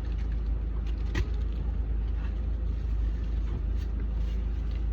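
Steady low rumble of a running vehicle, with a faint click about a second in.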